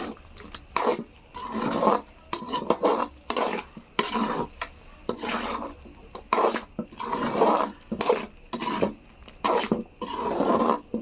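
Spoon or spatula scraping and clinking around a kadai as chicken fry is stirred to coat it with masala, in repeated strokes about once a second.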